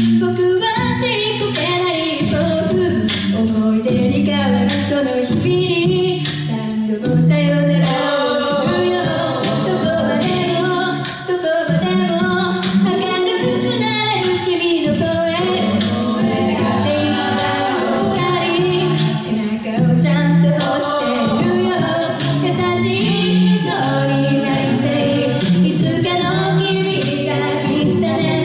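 Mixed-voice a cappella group singing a J-pop song through handheld microphones: a female lead over sustained male and female backing harmonies, with vocal percussion keeping the beat.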